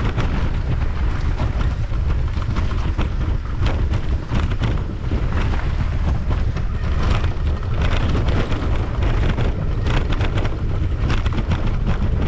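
Wind buffeting the microphone of a camera on a mountain bike's handlebars during a fast descent over grass and dirt: a steady low rumble, broken by frequent short rattles and knocks as the bike goes over bumps.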